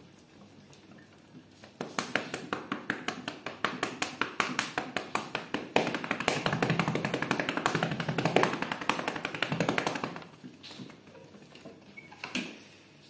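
A hand patting and slapping a cat's rump in quick, regular strokes, about five a second. About six seconds in the pats come faster and heavier, and they stop about ten seconds in. A single knock follows near the end.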